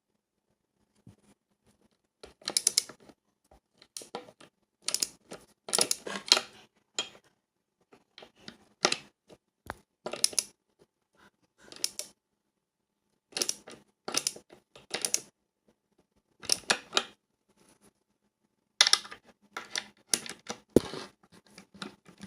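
Front skateboard truck being bolted to the deck: a skate tool turning the nuts onto the Shake Junt mounting bolts. It comes as about fifteen short bursts of clicking and scraping with pauses between.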